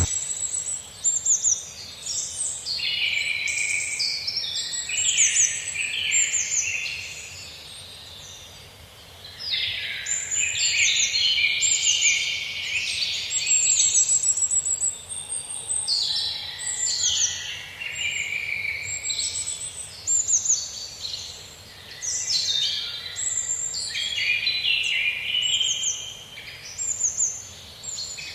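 A chorus of many small birds chirping and singing at once, overlapping quick high trills and short falling notes. It thins out for a couple of seconds about a third of the way in, then fills back in.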